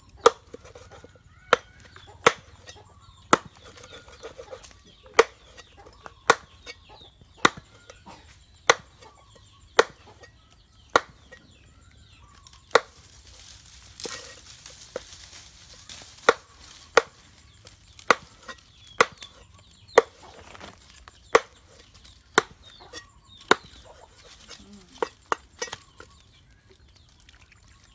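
Large knife chopping a water snake into pieces on a round wooden chopping block: sharp knocks, roughly one a second, with a short break about halfway through.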